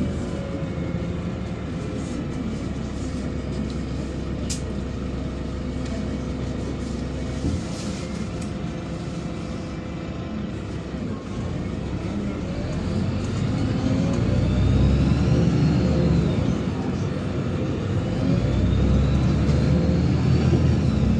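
Interior sound of a LiAZ-5292.67 city bus running on compressed natural gas: engine and running gear running steadily as it drives. About two-thirds of the way in it gets louder, and a whine rises in pitch twice as the bus accelerates.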